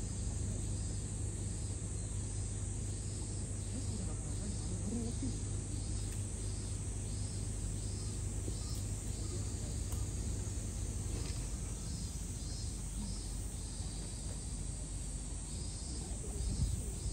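Insects calling outdoors in a steady series of short, high pulses, about two a second, over a low steady hum that drops away about two-thirds of the way in.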